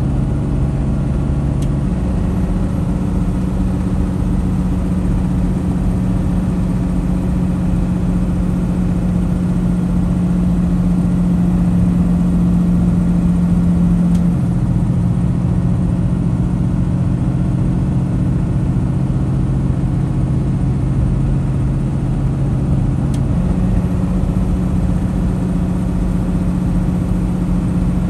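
Semi-truck's diesel engine and road noise heard from inside the cab, a steady drone. The engine's pitch jumps up about two seconds in, drops about halfway through, and jumps up again near the end.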